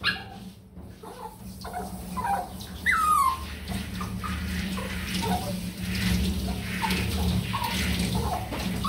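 Handheld sprayer hissing as it rinses a small dog in a grooming tub, the spray building from about three and a half seconds in, over a steady low hum. The dog whines in short high whimpers, one sliding down in pitch about three seconds in.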